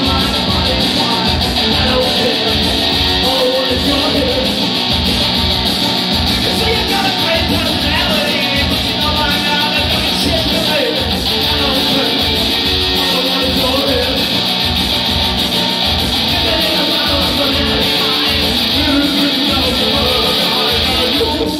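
Live rock music played loud: electric guitar over a steady beat, with a man singing into a microphone.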